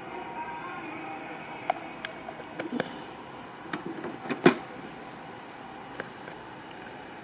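Scattered knocks and clicks of cooking utensils over a steady hiss, the sharpest knock about four and a half seconds in.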